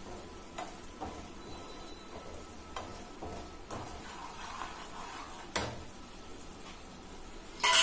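Wooden spatula stirring and scraping a thick mixture of cream, sugar and nuts in a nonstick kadhai, over a faint sizzle of the ghee the mixture is releasing, with several soft knocks of the spatula against the pan. A much louder sharp clatter comes near the end.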